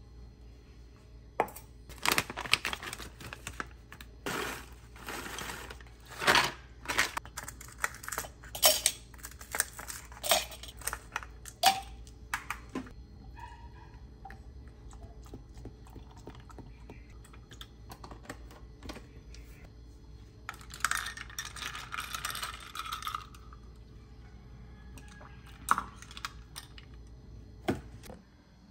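Kitchen handling sounds: a metal spoon clinking and scraping in glass mason-jar mugs and ice cubes knocking against the glass, a quick run of sharp clinks through the first half, then a few scattered ones with a longer rattling stretch about three quarters of the way through.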